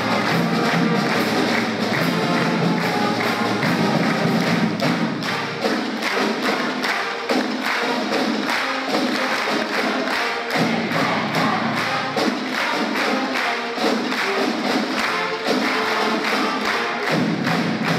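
School pep band of brass, sousaphone and drums playing the school fight song with a steady beat, and the standing crowd clapping along.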